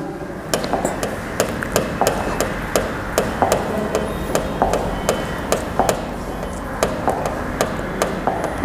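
Chalk knocking against a blackboard while writing: a quick, irregular run of sharp taps, a few each second, over a steady low hum.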